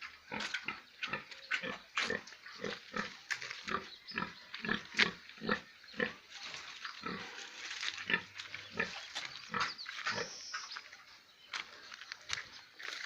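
Pigs grunting and squealing in a dense run of short calls, about two or three a second, with no pause.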